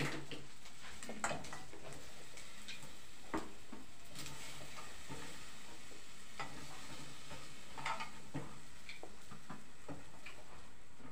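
Meat frying in a pot on a gas stove, a steady sizzle, with a few sharp knocks and clicks now and then as the pot's contents are handled.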